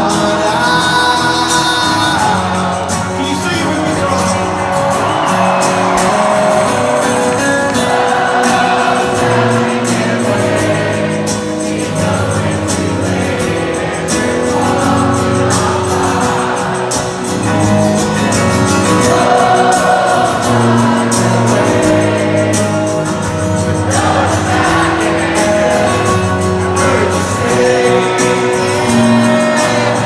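Live rock band playing through a concert PA, guitars and drums with a man singing lead, heard from among the audience.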